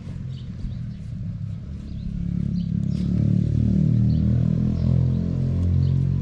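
A motor vehicle's engine running, growing louder from about two seconds in, its pitch shifting up and down as it goes.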